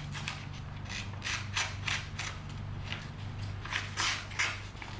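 Sheet of paper being sliced with the plain knife blade of a Ganzo G105 multi-tool: a series of short, crisp rasping cuts, some in quick runs, over a steady low hum.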